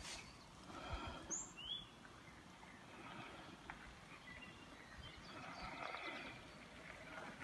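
Faint woodland ambience with birds chirping, two short high calls about a second and a half in and fainter calls later.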